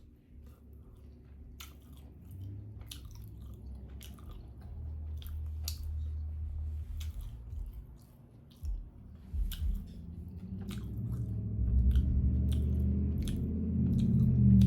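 A person chewing and biting food close to the microphone, with sharp crunches and mouth clicks scattered throughout; the chewing grows louder in the last few seconds.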